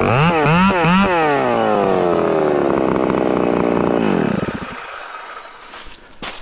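Ported Farmertec G888 chainsaw (an 880-class clone) blipped a few quick times, then its revs fall slowly for a few seconds before the engine drops away and goes quiet about four seconds in. A few sharp knocks come near the end.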